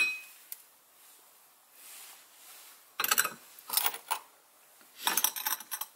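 Porcelain cups, saucers and plates clinking and rattling as they are picked up and set down: one clink with a short ring at the start, then bursts of clinks about three, four and five seconds in.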